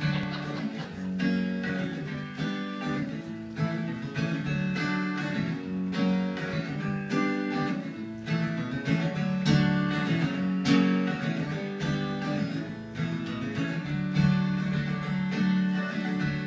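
Acoustic guitar strumming with an electric guitar playing along: the instrumental introduction of a folk song, with a steady rhythm and no singing yet.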